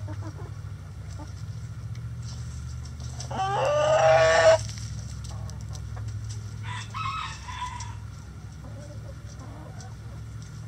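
A rooster crows once, loudly, a little after three seconds in, and a fainter crow or call follows around seven seconds in, among the clucking of foraging hens. A steady low hum runs underneath.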